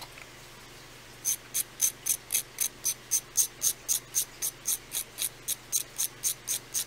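A chalk pastel stick being scraped in quick, regular strokes, about four a second, starting a little over a second in, shaving powder off the stick.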